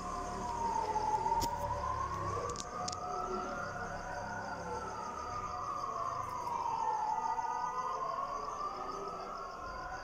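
Air-raid warning siren wailing, its pitch rising and falling slowly, about six seconds to each rise and fall, with crickets chirping steadily underneath.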